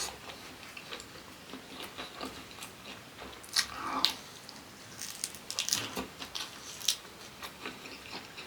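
Close-miked chewing and mouth sounds of someone eating, with irregular wet smacks and clicks that come in louder clusters about halfway through and again near the end.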